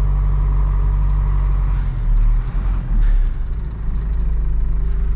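Hino cab-over box truck's diesel engine and road noise heard from inside the cab while driving, with a steady low engine note that shifts slightly about three seconds in.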